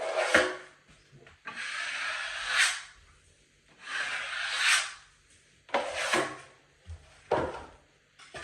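Metal drywall taping knife scraping joint compound across the wall: two long strokes of about a second and a half each, then a few shorter swipes near the end.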